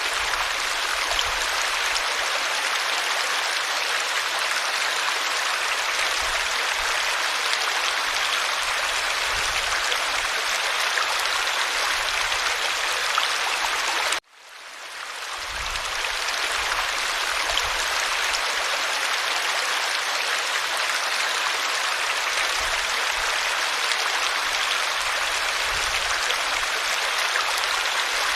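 Stream water running with a steady rush. About halfway through it cuts out for an instant and fades back in, like a loop restarting.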